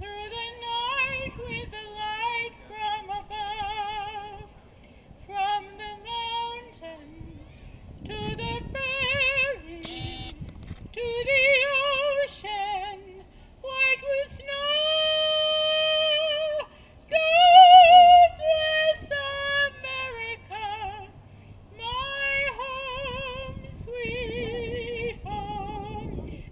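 A woman singing solo into a handheld microphone through PA speakers, her voice carrying a strong vibrato. The phrases come with short breaks between them, with a long held note about halfway through and a loud high note just after it.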